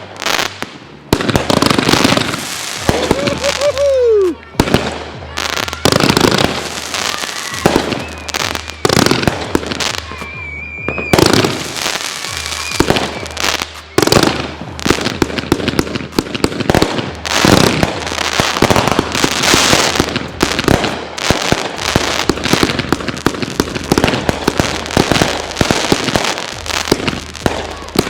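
Consumer fireworks going off in rapid succession: dense bangs and crackling with barely a gap, and a short falling whistle about three seconds in.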